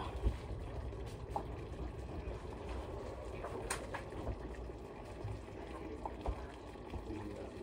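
Sugar syrup bubbling at a boil in a pot, with a few faint ticks and one sharp click a little under four seconds in.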